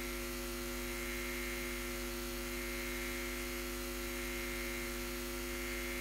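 Steady electrical mains hum and buzz from the church sound system, a few steady tones holding at one level.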